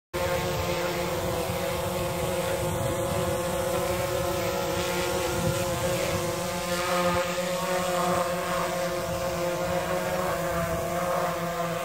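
DJI Phantom 3 Professional quadcopter hovering a few feet above the grass with no stick input, its four propellers giving a steady multi-toned buzz that wavers slightly in pitch.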